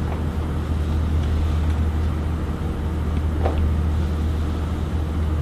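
A steady low hum throughout, with a few faint taps as the walker is set down during walking.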